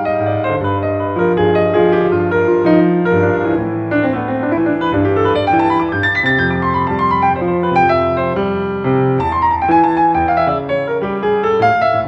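Background music: solo piano playing a flowing melody over sustained chords.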